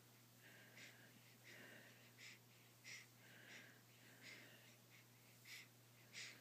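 A baby hiccupping faintly, with a short, breathy little gasp about every two-thirds of a second, nine or so in a row.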